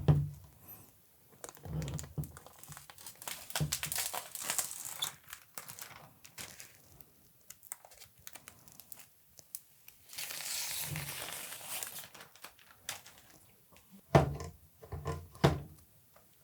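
Protective plastic film being peeled off a new PC case's panels: crinkling and tearing in uneven stretches, with one longer, smoother peel about ten seconds in. A few short knocks come at the very start and near the end.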